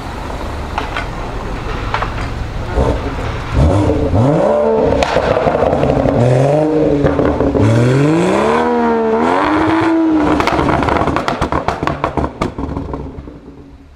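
BMW M140i's turbocharged straight-six revving through its M Performance exhaust in several rising and falling sweeps, then a rapid string of crackles and pops on the overrun before the sound fades.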